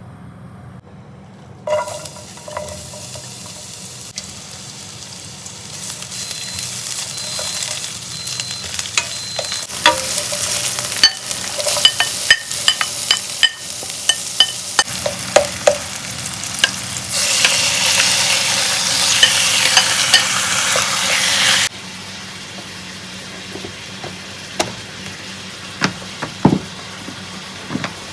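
Food frying and sizzling in a pan, with a utensil stirring and knocking against the pan. The sizzle starts about two seconds in and grows louder, with a run of sharp taps in the middle; near the two-thirds mark it drops suddenly to a quieter sizzle.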